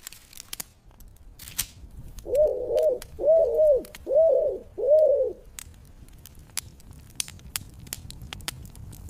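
A bird calling four cooing notes, each rising and falling in pitch, about a second apart, over scattered soft crackling like a small campfire.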